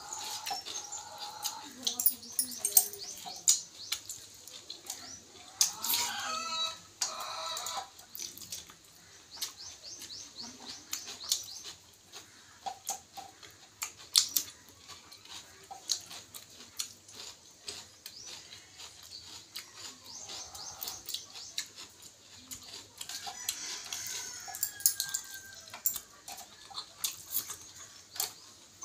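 Eating sounds of someone eating rice by hand from a steel plate: many sharp mouth clicks and smacks while chewing. Chickens clucking and small birds chirping run underneath, with louder calls about six seconds in and again near the end.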